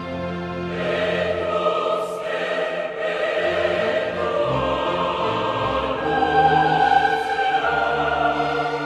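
Classical choral music: a choir singing long held chords over orchestral accompaniment, swelling louder about six to seven seconds in.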